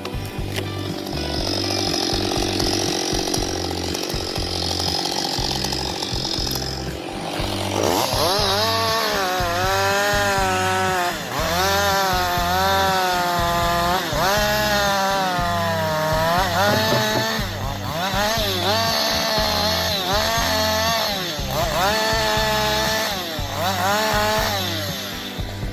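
Chainsaw cutting wood. About eight seconds in, the engine revs up, and its pitch then dips and recovers again and again as it cuts. Background music with a steady low beat plays under it.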